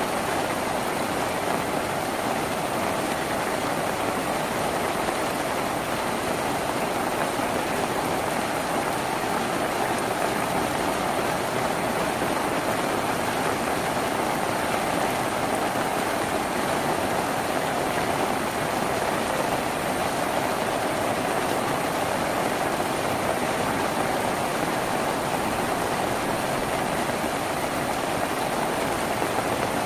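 Steady heavy rain drumming on a tin roof, a dense even hiss and patter.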